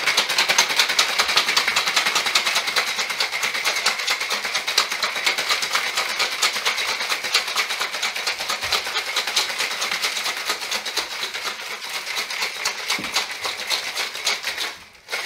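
Stainless-steel three-part cocktail shaker shaken hard, its contents rattling in a fast, steady stream of clicks; the rattling stops just before the end.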